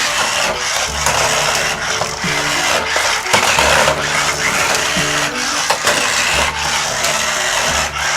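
Small electric motor of a remote-control toy's skateboard base whirring as its plastic wheels run and spin it across the floor. Background music with a low, held bass line plays along.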